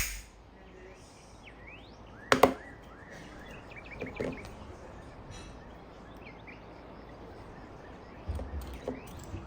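Quiet outdoor background hiss with faint short rising chirps from small birds. Two sharp clicks stand out, one at the very start and a louder one about two and a half seconds in, with a few fainter clicks later.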